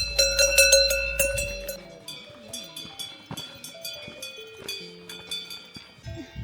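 Several cowbells of different pitches clanking irregularly, each strike ringing on. The clanking is loudest in the first two seconds.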